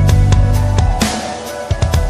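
Background music with a band sound: a strong bass line and a steady drum beat, with a cymbal-like crash about a second in.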